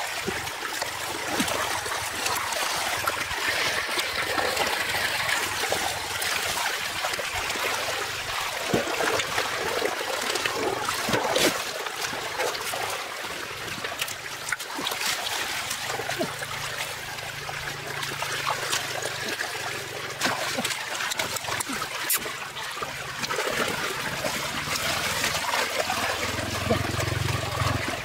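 Muddy water trickling and splashing out of a drain pipe into a shallow ditch, with occasional sharp splashes in the water.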